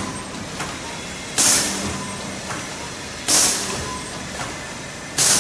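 Plastic apron bag making machine running in its cycle: a steady mechanical hum broken by a loud, short hiss of air about every two seconds, three times, with a fainter click between each hiss.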